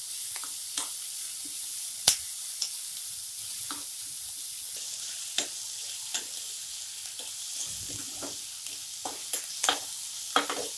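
Chopped onions and ginger-garlic paste sizzling in hot oil in a kadhai, with a steady hiss and irregular sharp clicks and scrapes as a metal spoon stirs them against the pan. They are being sautéed until the rawness of the onion and garlic goes.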